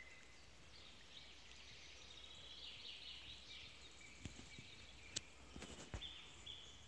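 Faint songbirds calling in the woods, with short high chirps and, near the end, three repeated notes. A few sharp clicks come about four to six seconds in.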